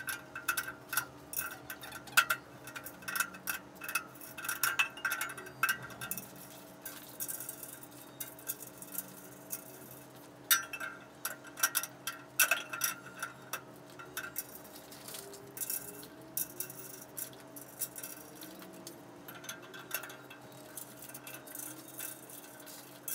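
Metal screws clinking and small metal parts tapping as screws are picked from a cardboard box and threaded by hand into the crossbars of a metal pool table frame: scattered sharp clicks and clinks, busiest at the start, around the middle and near the end.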